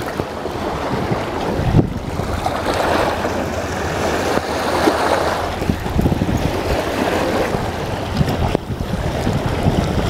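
Wind buffeting the microphone over choppy river water washing against shoreline rocks, with a brief thump about two seconds in.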